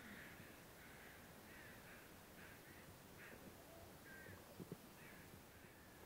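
Crows cawing faintly, a loose series of short calls repeating about once or twice a second, with two soft knocks about two-thirds of the way through.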